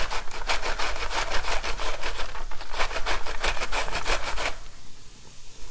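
Fresh green cabbage being shredded on a Pampered Chef mandoline slicer: quick, even scraping strokes, about five a second, as the half head is pushed back and forth over the blade. The strokes stop about four and a half seconds in.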